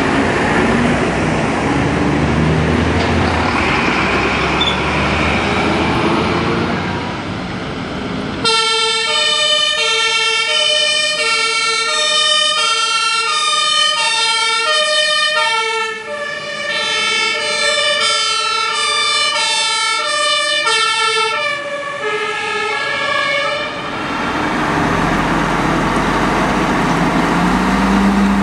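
Diesel fire engines running and pulling away, then, about eight seconds in, a German two-tone fire-engine siren alternating steadily between a high and a low note for about fifteen seconds, its pitch sagging slightly before it fades out. After the siren stops, a truck's diesel engine runs again.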